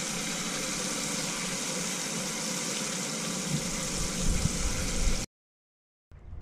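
Breaded catfish nuggets frying in oil in a small cast iron skillet on a canister gas stove: a steady sizzle, with a few louder thumps near the end. The sound cuts off suddenly about five seconds in.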